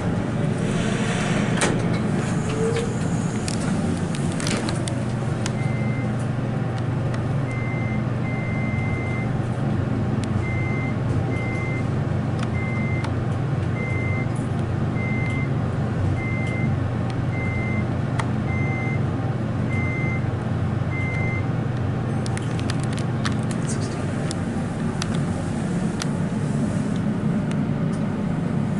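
Westinghouse traction elevator car riding upward with a steady low hum. About a dozen short, high electronic beeps sound roughly a second apart through the middle of the ride, with a few light clicks near the start and the end.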